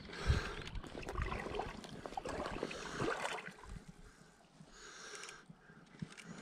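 Shallow river water sloshing and gurgling around a hooked trout being played on a fly rod, with scattered light clicks and knocks. It eases off for a moment just past the middle.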